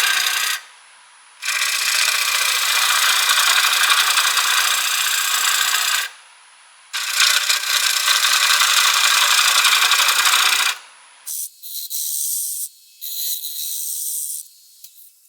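A turning tool cuts into spinning green walnut on a wood lathe, making a steady rasping, shaving sound. It comes in three long passes with short breaks, about a second in and at six seconds. After about eleven seconds it gives way to a thinner, higher hiss in short bursts.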